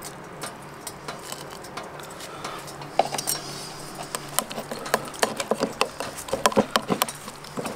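A metal utensil clinking and scraping against a small metal camp cooking pot while food is stirred, a run of light clicks that grows busier about three seconds in.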